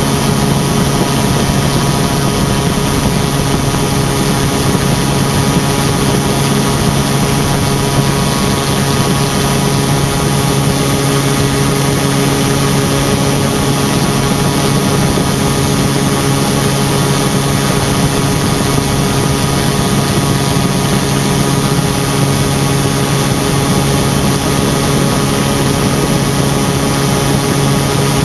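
Quicksilver MX ultralight's engine running steadily in level flight, an unchanging drone heard over a constant rush of air.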